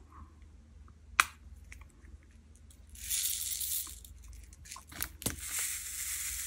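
A small plastic bag of acrylic diamond-painting drills being handled: a sharp click about a second in, a few light clicks, then two stretches of crinkly rustling, the second running into the end.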